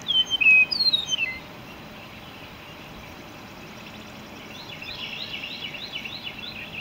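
Bird calls: a quick run of whistled notes falling in pitch in the first second and a half, then a steady series of short chirps, about three a second, in the second half.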